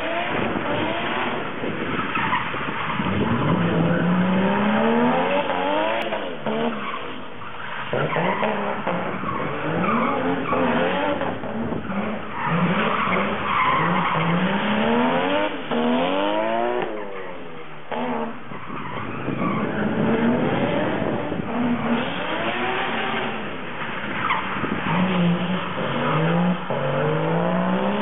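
Onevia drift car's RB25DET turbocharged straight-six engine revving, its pitch climbing and dropping over and over as it drifts, with the tyres skidding and squealing on wet tarmac.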